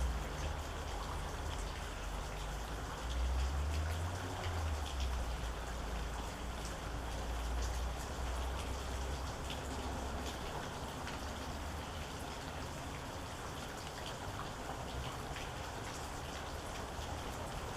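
Steady rain with many distinct drops striking a hard surface. Under it a low rumble swells about three to five seconds in and dies away by about ten seconds.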